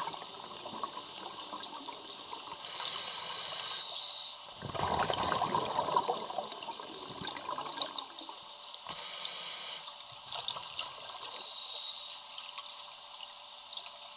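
A scuba diver's regulator breathing underwater: short hissing inhales through the demand valve alternating with bubbling exhales, the loudest bubbling stretch about five seconds in.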